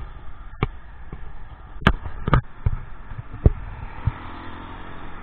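A series of about seven sharp, irregularly spaced thumps close to the microphone, over a steady hum of road traffic.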